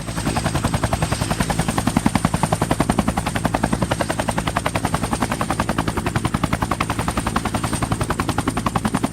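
A fast, steady rattle of about a dozen even pulses a second, with a faint high whine above it.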